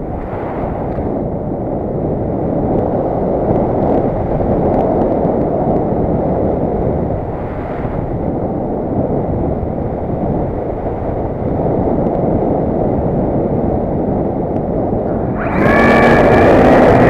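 Wind rushing over the nose-mounted camera of a radio-controlled MDM-1 Fox model glider gliding with its propeller folded. About a second and a half before the end, the nose motor starts and the propeller spins up, adding a steady whine and louder rushing.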